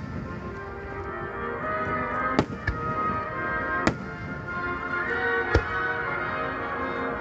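Starmine aerial firework shells bursting with about four sharp bangs, a close pair about two and a half seconds in, then single ones near four and near five and a half seconds, over continuous background music.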